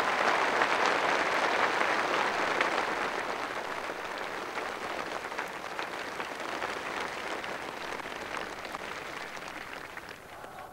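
Large crowd applauding, the clapping gradually dying away.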